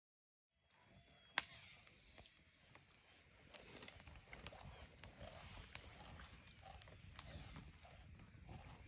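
Night insects, crickets or katydids, trilling as one steady high-pitched chorus, with a few sharp clicks scattered through, the loudest about a second and a half in.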